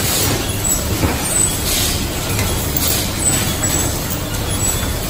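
Steady factory-floor noise of assembly-line machinery, a low hum under a hiss, with faint brief bursts now and then from the handheld auto-feed screwdrivers.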